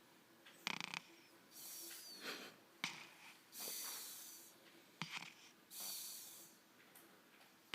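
Snoring: three slow, hissing breaths about two seconds apart, each with a thin high whistle, and a short sharp click or snort just before each breath.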